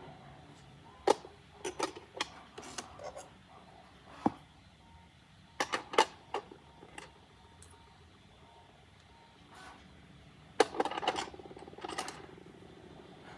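Irregular clicks and knocks of hard 3D-printed plastic parts being handled and fitted together, in several short clusters with quiet gaps between them.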